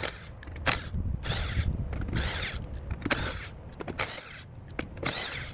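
Hand ratchet wrench clicking in short strokes, about one stroke a second, while the rear wheel's lug nuts are worked loose.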